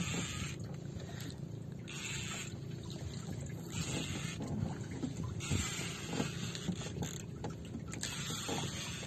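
Outrigger fishing boat's engine running with a steady low hum, while water washes against the hull in short bursts every second or two.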